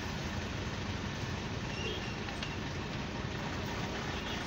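Steady low hum of a motor vehicle engine running, under a constant outdoor noise haze.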